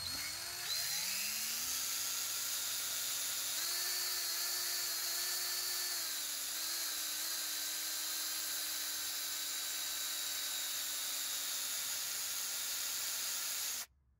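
Electric drill with a 1/8-inch bit spinning up and then running steadily as it bores into the broken-off end of an oil dipstick stuck down the dipstick tube. The motor speed rises a little about three and a half seconds in, eases back around six seconds, and the drill stops abruptly near the end.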